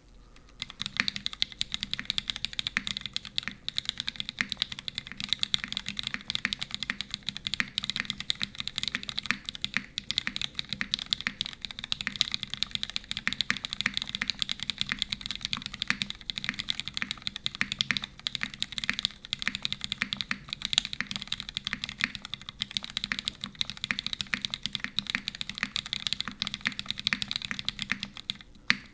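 Continuous fast typing on a custom mechanical keyboard with lubed linear Cherry MX Retooled Black switches, GMK keycaps and an aluminium plate, with no dampening foam. It starts about a second in, with a brief pause near the end.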